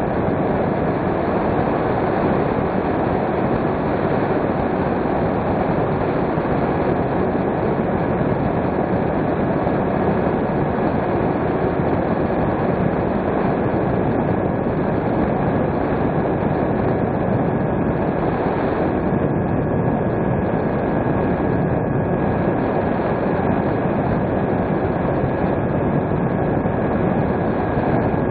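Steady rush of wind and motor noise picked up by a model airplane's onboard camera, with a faint steady whine, unchanging throughout as of cruising at constant throttle.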